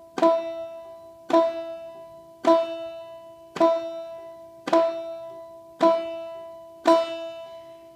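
Banjo's first string struck with a clawhammer knocking downstroke, the thumb landing on the fifth string: seven single notes, evenly spaced a little over a second apart, each ringing out and fading.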